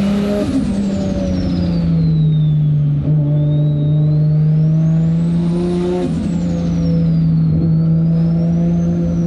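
Nissan Skyline R32 GTR's RB26 straight-six with a big single turbo, running hard under load. A high turbo whistle climbs with the revs and falls away as the throttle is lifted, just after the start and again about six seconds in, then rises more gently near the end.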